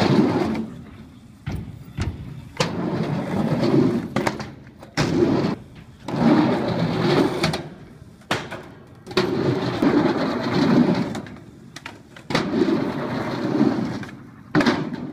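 Skateboard wheels rolling over an asphalt skatepark ramp in several short runs, each punctuated by sharp clacks of the board popping and landing flip tricks.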